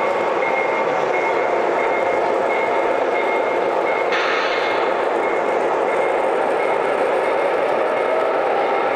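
O gauge three-rail model diesel locomotive running slowly along the layout track, heard over the steady noise of a busy train show hall. A high beep repeats quickly throughout, and a short hiss comes about four seconds in.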